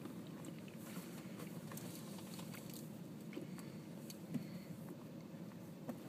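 Faint, steady low hum of a flying honey bee swarm, with a few soft clicks.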